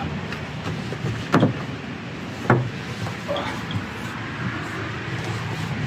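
Knocks and bumps of a wooden sleeping platform of plywood and slats in a pickup bed as a person shifts and lies down on it: two sharper knocks about a second and a half and two and a half seconds in, with fainter ones between, over steady low background noise.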